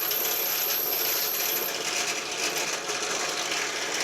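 Power drill boring holes through a brass bar, running steadily with the bit cutting metal; a faint high whine drops out a little under halfway through.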